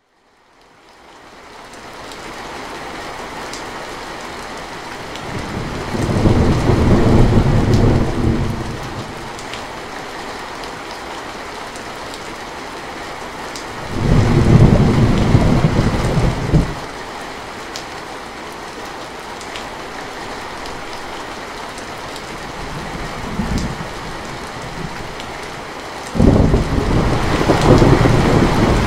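Heavy rain with steady hiss and patter, fading in from silence over the first couple of seconds. Thunder rolls over it in long low rumbles: one about six seconds in, a louder one about fourteen seconds in, a faint one a little past twenty seconds, and a loud one breaking in suddenly near the end.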